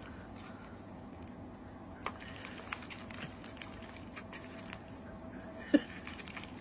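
A dog licking and chewing sticky natto beans from a plastic tub while chopsticks stir the natto, heard as faint wet squishes and scattered small clicks, with one sharper click near the end.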